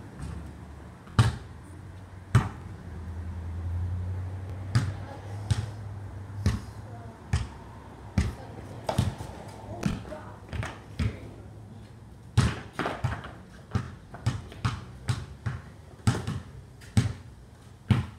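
Basketball bouncing on a concrete driveway: a few single bangs in the first seconds, then steady dribbling that quickens to about two bounces a second in the second half.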